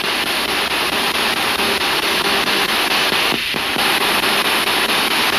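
Radio static from a spirit box sweeping through stations, played through a speaker: a steady hiss chopped by faint regular clicks, with one short falling burst about three and a half seconds in.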